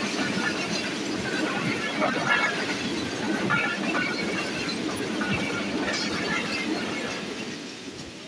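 Passenger train rushing past close by: a steady rumble of carriage wheels on the rails with brief high wheel squeals scattered through it, fading away near the end as the last carriage passes.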